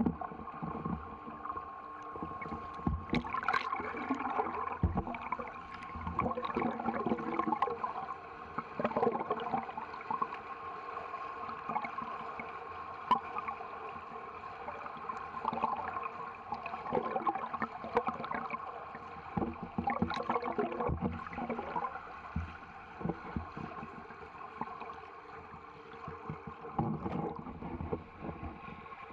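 Muffled underwater sound in a swimming pool: the sloshing and gurgling of a swimmer's front-crawl strokes, coming and going irregularly over a steady hum.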